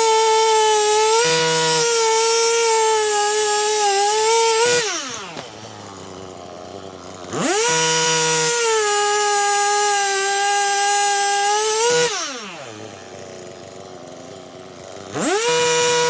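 Stihl MS 261 C-M chainsaw, a two-stroke, running at full throttle. It is let off twice, about 5 and 12 seconds in, its pitch sliding down to idle, and opened up again sharply a couple of seconds later each time.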